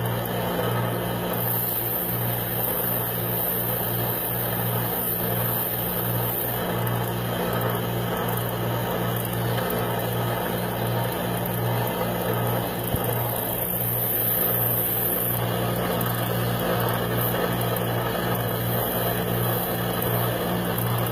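Combination belt sander running steadily with a constant motor hum, grinding the corners of a metal bracelet hinge round to taper it.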